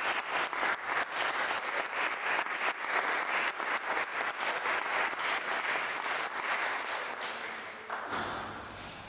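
Audience applauding with many hands clapping, dying away near the end.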